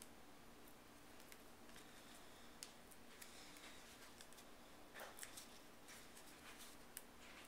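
Near silence: faint rustling and a few light ticks of small cardstock pieces being handled, over a faint steady hum.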